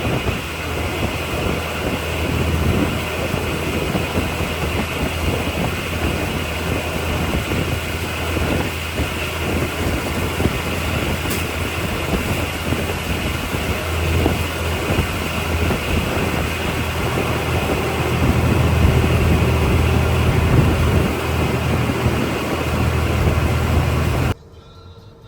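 Logging truck's diesel engine running steadily, a low drone with a steady hiss above it; it cuts off suddenly near the end.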